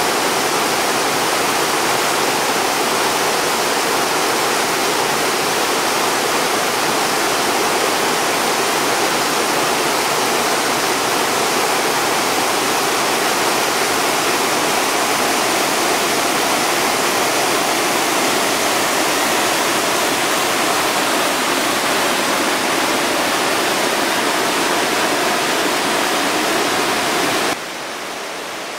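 Whitewater rapids of a river running in high water, a loud steady rush; it drops to a quieter rush a little over a second before the end.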